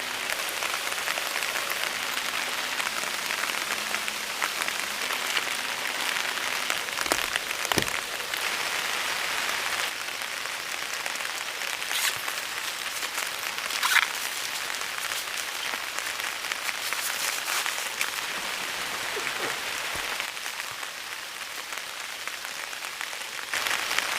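Steady rain falling and pattering on a surface, with a few sharper taps or drips; the loudest is about fourteen seconds in.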